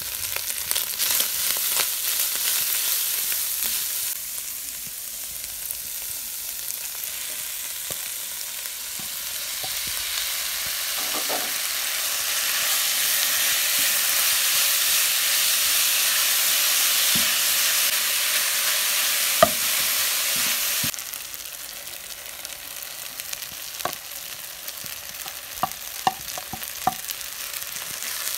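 Minced beef and shredded vegetables sizzling in a nonstick kadai while a wooden spoon stirs them. The sizzle swells and fades, drops abruptly about three quarters of the way in, and a few sharp taps come near the end.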